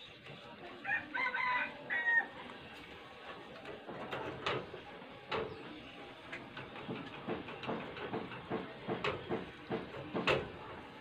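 A rooster crows once in the background about a second in. Then a wooden stick stirring sticky bird lime in a small tin can on a gas burner knocks and scrapes against the can over and over, the sharpest knock near the end.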